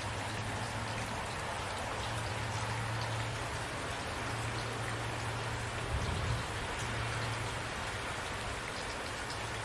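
Steady rain falling, with single drops ticking close by over the even hiss. A brief low thump about six seconds in.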